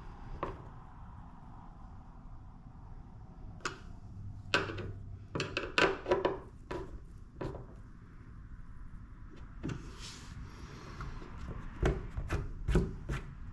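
Self-tapping screws being turned in by hand with a screwdriver: scattered clicks and knocks of the driver on the screw heads, with light rubbing and scraping between them.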